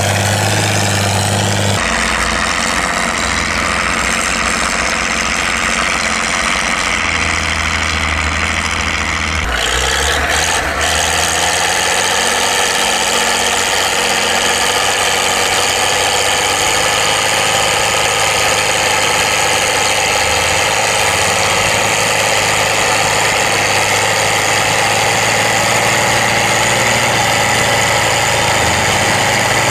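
Fiat 1300 DT tractor's six-cylinder diesel engine running steadily under load while pulling a plough. The sound changes abruptly about two seconds in and again about ten seconds in.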